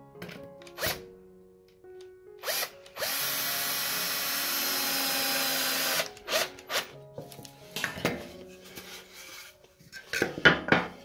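Power drill driving a screw into the wooden top rail of a scrap-wood roosting bar, one steady run of about three seconds starting about three seconds in. Sharp wooden knocks and clatter from handling the tool and wood come before and after, loudest near the end.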